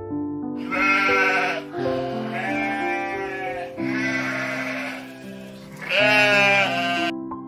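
Sheep bleating four times, each call a second or two long, the last the loudest, over background music.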